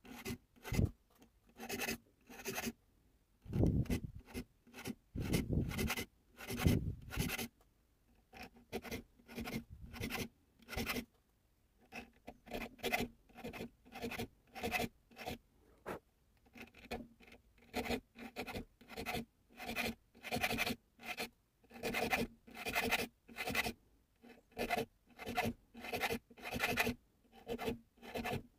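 Nicholson triangle file cutting notches into the spine of pocket-knife liners held in a vise: a steady run of rasping file strokes, about two a second.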